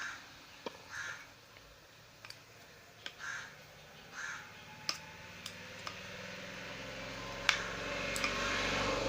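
Four short cawing calls in the first half, a few light clicks and taps scattered through, and a low hum growing steadily louder over the last few seconds.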